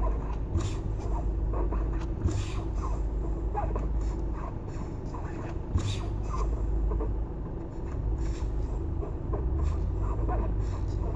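Car brakes scraping and rubbing in short, irregular strokes over a steady low rumble.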